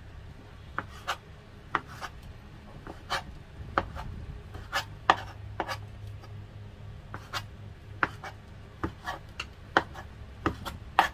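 A chef's knife slicing chicken sausages on a plastic cutting board makes a series of sharp, irregular taps as the blade meets the board, about two a second. A low steady hum sits underneath.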